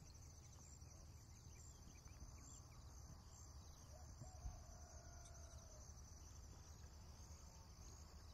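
Near silence: faint room tone with a steady high hiss, and one faint tick about four and a half seconds in.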